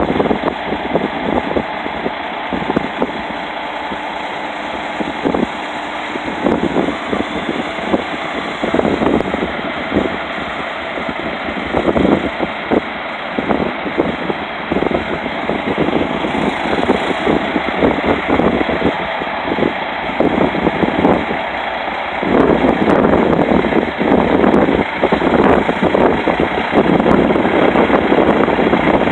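Peterbilt semi truck's diesel engine idling, then running louder about two-thirds of the way through as the truck pulls forward out of the wash bay.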